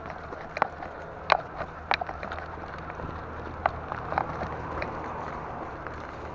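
Bicycle ridden over a rough dirt single track: irregular sharp clicks and knocks as the bike rattles over bumps, most of them in the first two seconds, over a steady low hum and rushing noise.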